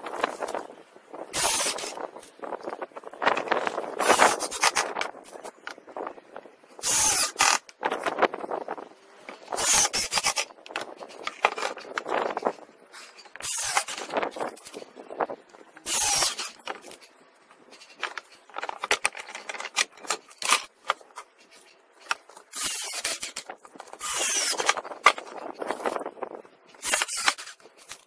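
Pallet-wood boards being handled and scraped on a workbench during assembly: repeated short, rough scraping and rubbing bursts, each about a second or less, at irregular intervals with brief pauses between.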